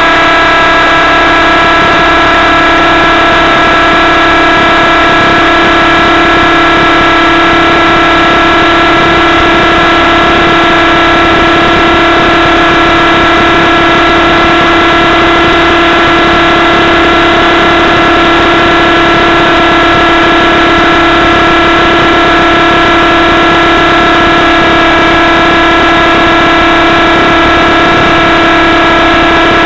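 Hirobo Sceadu EVO .30 RC helicopter's two-stroke nitro glow engine and rotor, heard loud from on board, running at a steady high speed in flight.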